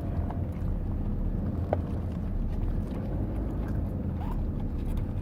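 Steady low rumble of a car driving, heard from inside the cabin, with a few faint small clicks.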